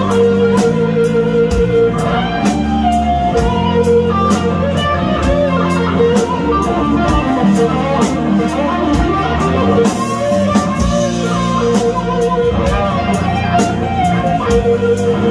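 Live rock band playing an instrumental passage: electric guitars, bass guitar and drum kit keeping a steady beat.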